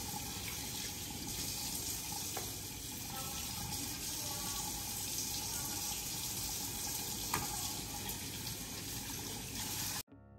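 Tap water running steadily into a sink, with a couple of faint clinks. It cuts off suddenly near the end.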